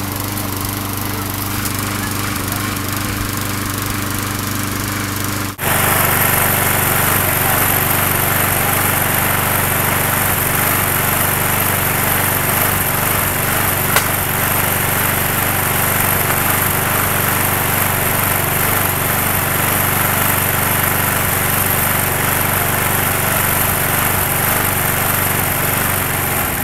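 Walk-behind lawn mower engine running flat out with a loud, steady drone, fuelled on octane booster with more booster mixed into its oil. About five seconds in, the sound drops out for an instant and comes back louder and harsher, then it starts to fade at the very end.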